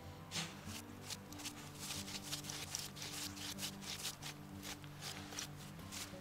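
Small terrier digging in loose sandy soil with its front paws, a quick run of scratching strokes about three or four a second.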